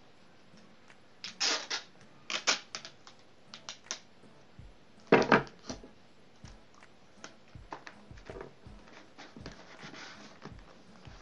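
Sticky tape being pulled off its roll and torn in a few short, loud rips, the loudest about five seconds in with a thump on the table, followed by lighter taps and the crinkle of wrapping paper being handled.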